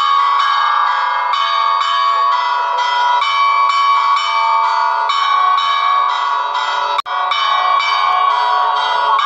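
Church bells of the Nossa Senhora da Oliveira tower ringing in a fast peal, a strike about every half second. The sound cuts out for an instant about seven seconds in.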